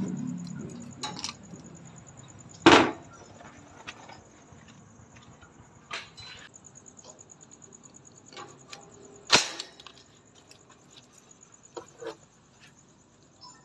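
Manual nail gun firing twice, about six and a half seconds apart, each a sharp metallic crack with a short ring as a nail is driven through a metal bracket into a concrete floor, with lighter knocks and clicks of the tool and bracket between the shots.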